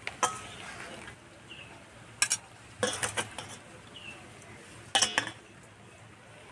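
Stainless-steel ladle clinking and scraping against steel bowls as curry and koftas are ladled out: a few sharp clinks, the clearest about two seconds in and at five seconds.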